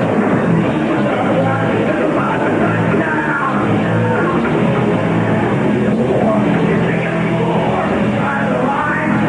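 Punk rock band playing live at full volume: drums, bass and distorted electric guitar in a continuous loud wall of sound. The recording has little treble.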